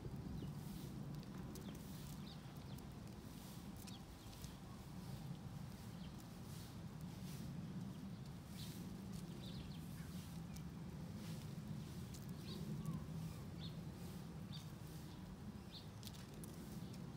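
Rock pigeons pecking at asphalt: faint, irregular taps over a steady low rumble, with a few brief high chirps.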